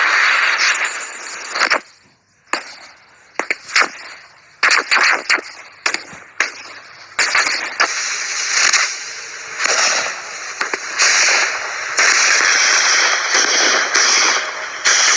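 Firecrackers going off: a string of sharp bangs and crackles, then a denser, continuous hissing crackle through the second half.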